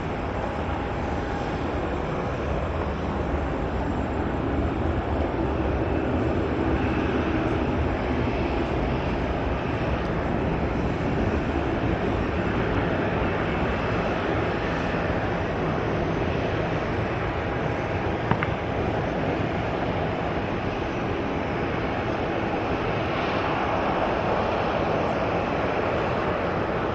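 The twin CFM56-3 turbofan engines of a Boeing 737-400 airliner at climb thrust just after takeoff, a steady jet rumble as it climbs away.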